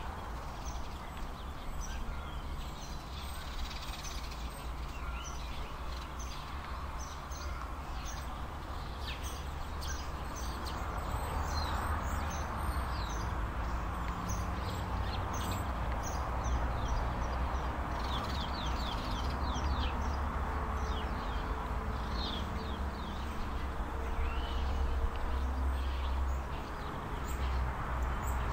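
Small birds chirping, many short high calls repeated through the clip, over a steady low rumble.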